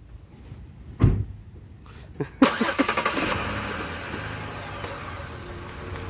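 A car engine starts about two and a half seconds in and keeps running, its sound fading gradually. A single low thump comes about a second in.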